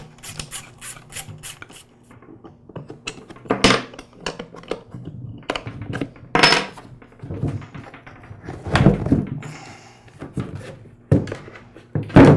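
Socket ratchet clicking in a quick, even run as a cover bolt is backed out, then scattered knocks and scrapes of the compressor's plastic pump cover being handled and lifted off the pump.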